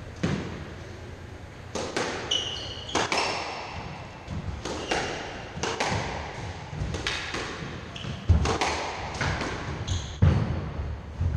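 A squash rally: a quick, irregular series of sharp cracks as the ball is struck by the rackets and slams into the court walls, ringing in the enclosed court, with short squeaks of court shoes on the wooden floor. The loudest thuds come about eight and ten seconds in.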